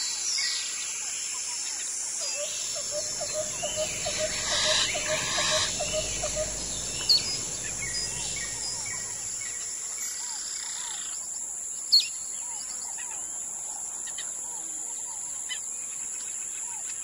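Wild birds calling and chirping in riverside bush over a steady high insect drone, with one bird repeating a quick note about three times a second early on. A low rumble swells through the middle, and two sharp clicks stand out.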